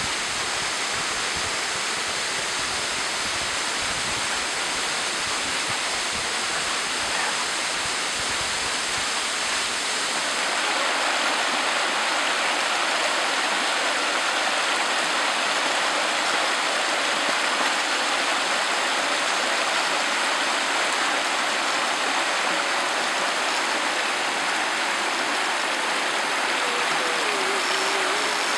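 Water of a small woodland waterfall and stream rushing steadily over rocks. About ten seconds in, the sound turns brighter and a little louder, as the water of a small cascade splashes close by.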